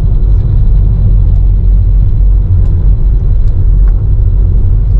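A car driving: a steady, loud low rumble of engine and road noise.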